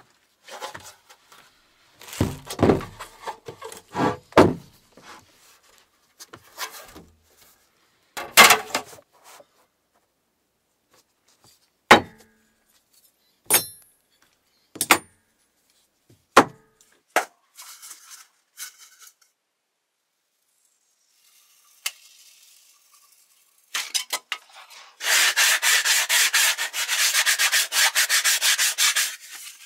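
Scattered knocks and clicks of small parts being handled and set down on the floor, then, near the end, about four seconds of rapid back-and-forth hand sanding with P180 sandpaper on a sanding block.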